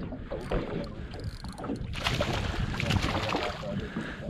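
Water and wind noise around a small fishing boat at sea, a steady low rumble. A broader rushing hiss swells from about two seconds in.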